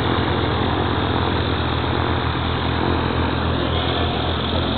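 Light single-engine propeller aircraft's piston engine running steadily at low taxi power close by, an even low engine note with propeller noise.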